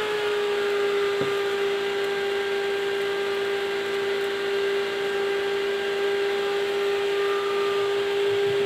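12-volt DC server cooling fan running at 12 volts: a steady, high-pitched whine with the rush of air it pushes, holding one pitch throughout.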